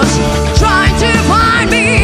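Live rock band playing loudly: steady drums and bass under a lead line that bends and wavers in pitch.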